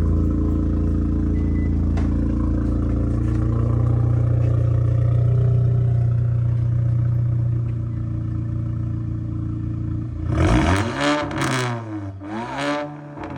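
K5 Blazer engine revving through its exhaust with the catalytic converter cut out. It runs steadily and the revs rise and hold, then from about ten seconds in come several quick throttle blips that rise and fall sharply. Spectators call the result really loud.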